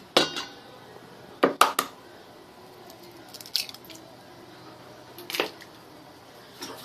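Eggs cracked against the rim of a stainless steel bowl, their shells snapping open: about five sharp cracks, two close together about a second and a half in.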